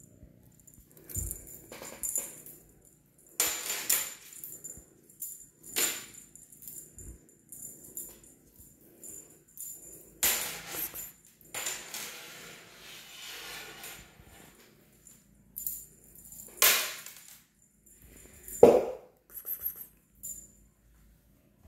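A cat toy rattling and jingling in irregular short bursts as it is shaken and batted, with a faint high ringing that comes and goes with the bursts. Loudest is one short sharp knock near the end.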